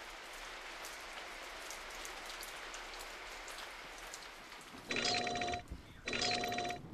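Steady rain falling, then about five seconds in a telephone bell starts ringing: two short rings.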